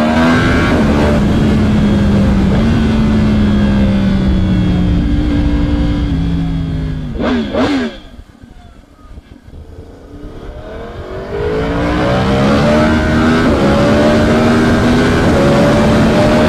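Yamaha R1M's crossplane inline-four engine running through a catalyst-free aftermarket exhaust as the bike rides off, holding a fairly steady note, then a quick sharp rev about seven seconds in. It goes much quieter for a few seconds, then climbs again with rising revs under acceleration.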